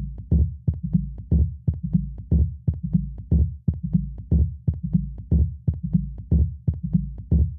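Music with a steady, deep drum beat over a bass line, starting abruptly.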